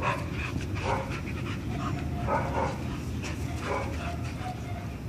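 Two dogs play-fighting, with a few short dog sounds scattered through.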